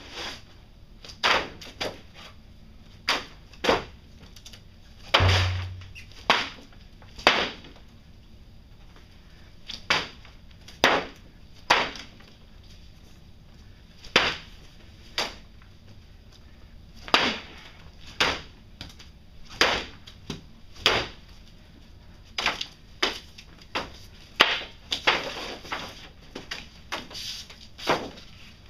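Irregular sharp knocks on a hard surface, about one a second with short pauses, with a heavier thump about five seconds in.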